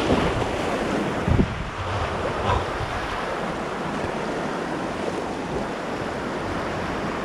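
Whitewater rapids rushing, a steady hiss of churning water, with wind buffeting the microphone. A low thump sounds about a second and a half in.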